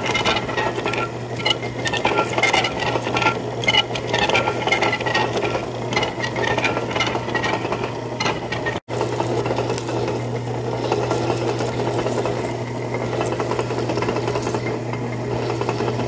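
Metal lathe turning a metal ring, the tool cutting it: a steady motor hum under the rough cutting noise, with a high squeal from the cut through the first half. The sound breaks off for an instant about halfway.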